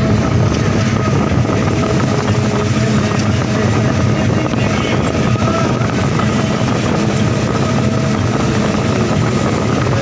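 Combine harvester running steadily at work, its engine and machinery making a loud, even drone heard from the operator's seat.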